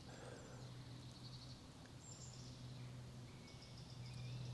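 Faint woodland birdsong: scattered high chirps and short trills from several birds, over a steady low hum.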